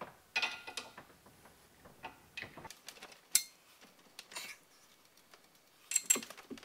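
VANOS gear on a BMW M54B30 intake camshaft being twisted back and forth by hand to work it off the cam, giving irregular metallic clicks and clinks, with the loudest click a little past the middle and a cluster near the end.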